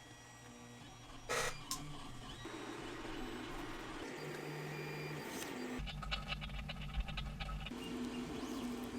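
Resin 3D printer's stepper motor running, a steady motor hum that jumps between several pitches as it changes speed, with a stretch of rapid fine ticking and rumble in the middle.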